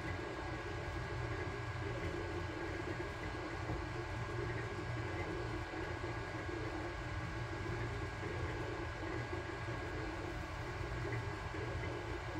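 Sunlu Terminator 3 FDM 3D printer running mid-print: a steady hum of its cooling fans, with the stepper motors whirring as the print head moves over the pumpkin print.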